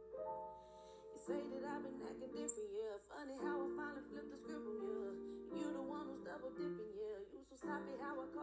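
Background music: a song with a woman singing over keyboard and guitar chords.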